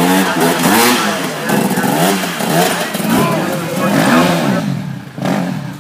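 Enduro dirt bike engine revving in repeated throttle bursts, its pitch rising and falling each time, as the bike is worked over logs in a muddy water section. Spectators are talking in the background.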